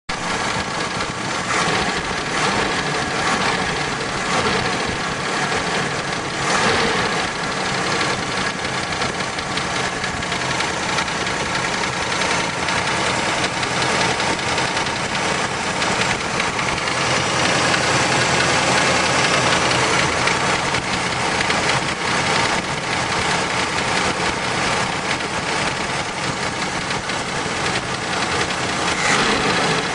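Pontiac 455 H.O. V8 of a 1971 Trans Am running steadily, with a knock in the engine. The knock is the fault being shown.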